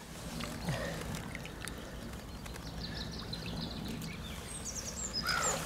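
Gentle lake-water sloshing and trickling as a carp is lowered into the shallows by hand and released. Small birds chirp in the background about three to five seconds in.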